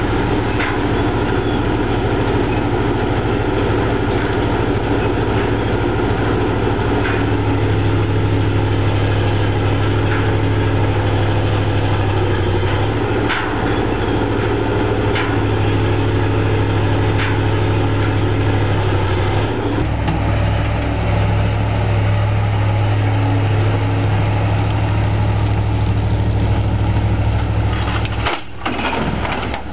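Menck dragline excavator's engine running steadily while it works, its low note shifting several times, with a few sharp clicks. The sound drops out briefly near the end, then resumes.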